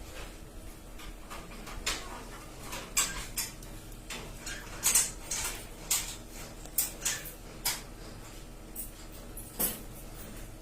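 Irregular light clicks and clatter of small hard objects being handled, about fifteen knocks spread unevenly, over a faint steady hum.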